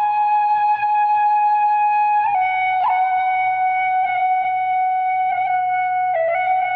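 Tin whistle playing a slow melody of long held notes, stepping down in pitch twice.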